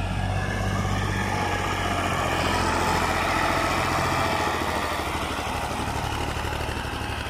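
Fiat tractor's diesel engine running steadily under load while pulling a rear leveling blade through sand. It grows louder as the tractor passes close by around the middle, then eases off.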